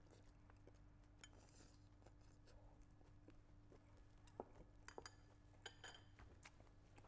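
Near silence: faint room hum with a few light clicks and taps of eating utensils against a bowl, most of them in the second half.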